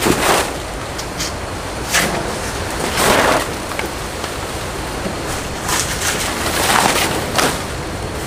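Large banana leaves rustling and swishing in about six short bursts as they are handled, over a steady background hiss.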